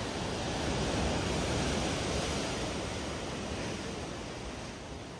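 Sea surf washing against a rocky shore: a steady rushing of water that swells about a second in and slowly dies away.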